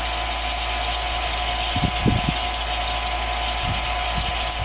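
BurCam 3/4 HP jet booster pump running steadily against a closed discharge, building pressure toward its cut-out point: a steady low hum with a high whine over it.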